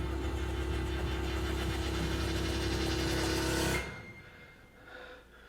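Low, steady rumbling drone with a held hum from a TV drama's tension soundtrack, slowly growing louder, then cutting off suddenly about four seconds in, leaving only faint room sound.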